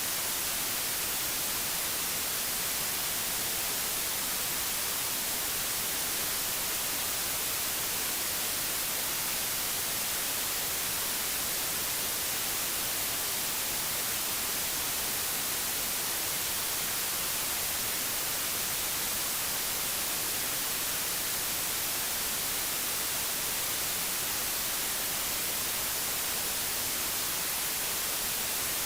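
Pure digital white noise: a steady, unchanging hiss with no events in it.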